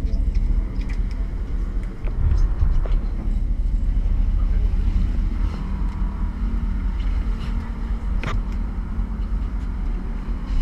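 Fishing boat's engines running with a steady low rumble, with water and wind noise; a single sharp knock about eight seconds in.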